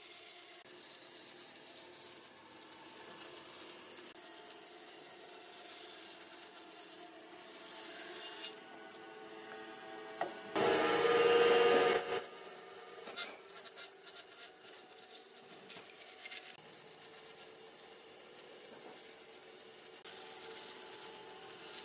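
Band saw running and cutting through a charred log, a steady rasping of blade on wood. A little past the middle comes a louder burst lasting about a second and a half.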